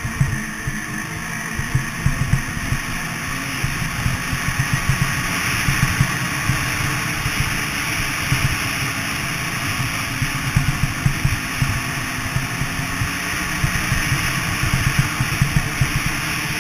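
Snowmobile engine running steadily as the machine rides along a snow trail, heard from on board, with frequent irregular low thumps.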